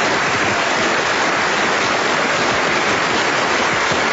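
Large audience applauding, loud and steady.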